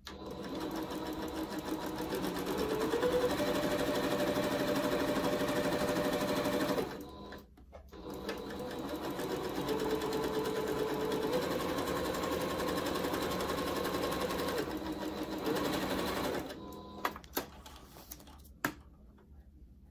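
Electric computerized sewing machine stitching a seam, running in two stretches of several seconds with a short pause between, its hum rising in pitch as it speeds up at the start of each. A few sharp clicks follow near the end.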